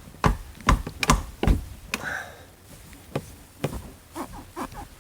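A flat-blade screwdriver knocking and clicking against a rear seat cushion's retaining catch while prying it loose. About five sharp knocks come in the first two seconds, then lighter scattered clicks.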